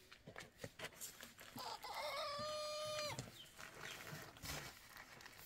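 A rooster crowing once, about a second and a half in: a rising start, then a long held note that drops off at the end. Faint scattered knocks and clicks around it.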